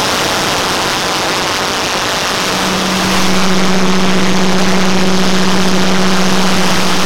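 Hundreds of video soundtracks playing on top of one another, merged into a loud, steady, jet-engine-like rush of noise. A steady low hum drops out for the first two seconds, then comes back.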